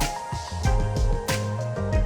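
Background music: an upbeat soul-funk track with bass and a steady drum beat.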